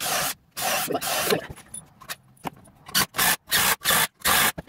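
Japanese pull saw rasping through a 2x4: two or three long strokes, a pause, then five quick strokes near the end.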